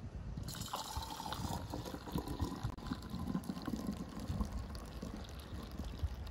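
Pomegranate juice pouring in a steady stream through a funnel into a glass jar, splashing and frothing as the jar fills. The pour starts about half a second in.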